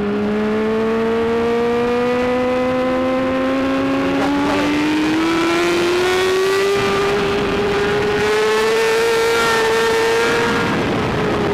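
BMW S1000RR inline-four engine at racing speed under throttle, its pitch climbing steadily for several seconds as it pulls up the rev range, then holding high before dropping near the end as the throttle is rolled off. A second engine note runs alongside it for the first few seconds.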